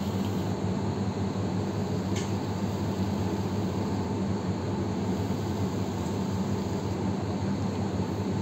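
Steady low mechanical hum and hiss of room machinery, like an air conditioner or fan.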